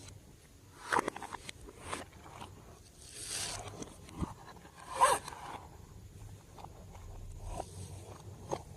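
Glossy slime being worked by hand, squished and stretched in short separate bursts, the loudest about a second in and about five seconds in.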